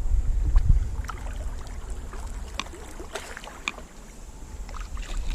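Canoe being paddled across the water: scattered paddle splashes, drips and light knocks against the hull, with wind rumbling on the microphone, heaviest in the first second.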